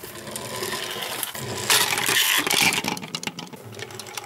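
Pull-back spring motors of two small plastic robot toys whirring as the toys run across a tabletop, their wheels scraping on the surface. The whirring grows louder for about a second near the middle.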